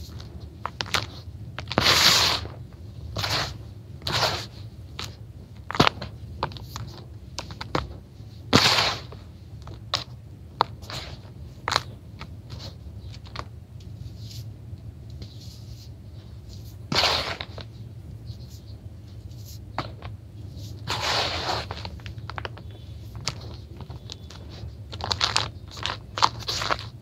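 Hands crumbling, scooping and sifting dry, gritty grey crumbled blocks in a plastic basin. The material gives irregular crunchy, rustling pours with many small crackles between them, and several louder bursts as handfuls are squeezed and dropped.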